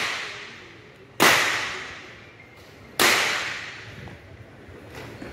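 Two sharp pistol shots from a 50 m .22 pistol match, about a second and three quarters apart, each followed by a long echo under the covered firing line. Another shot cracks right at the end.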